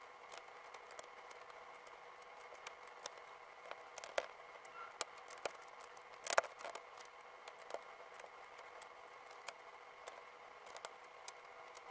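LEGO plastic bricks being handled and pressed together: scattered small clicks and rattles, the loudest a little past halfway, over a faint steady hum.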